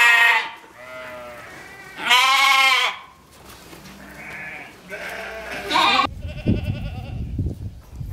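White domestic geese honking: several drawn-out honks, the loudest at the start and about two seconds in, with quieter ones between and a short loud one near six seconds. A low rumbling noise follows in the last two seconds.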